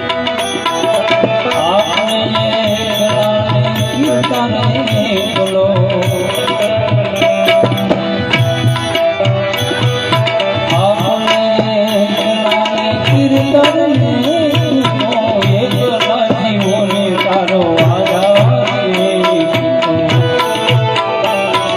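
Indian devotional bhajan music: tabla plays a steady, regular rhythm under a gliding melodic line.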